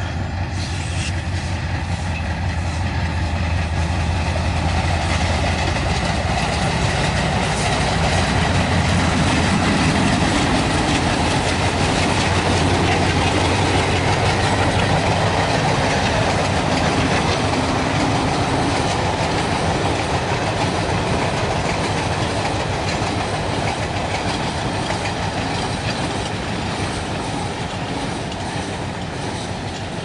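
WDM3A ALCO locomotive's 16-cylinder diesel chugging as it hauls a long passenger train past, with the coaches' wheels clattering over the rails. The sound swells to its loudest about a third of the way in and slowly fades toward the end.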